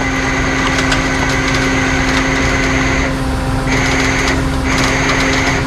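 Tow truck engine and hydraulic pump running under load with a steady whine while the hydraulics lift the front of the car. A higher hiss over it cuts out briefly about three seconds in and again about a second later.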